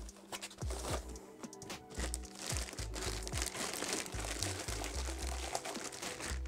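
Clear plastic bag crinkling and rustling as a packaged cooling-fan unit is handled inside it, over background music with a low, pulsing bass line.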